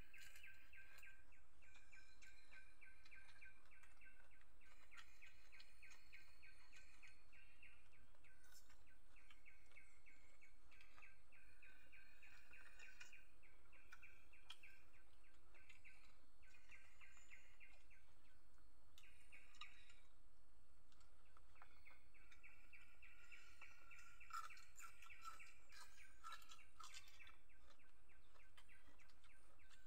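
Birds chirping in repeated short trills, each lasting a second or two with brief gaps, over a steady low background rumble.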